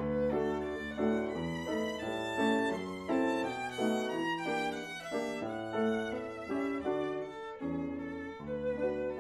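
Silent-film accompaniment music led by a violin playing a brisk run of notes over a lower accompaniment.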